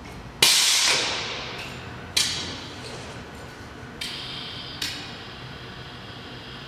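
Rigid manipulator arm's gripper clamping and lifting a steel cylinder: four sudden clanks, the first and loudest about half a second in and trailing off over about a second, then smaller ones at roughly two, four and five seconds.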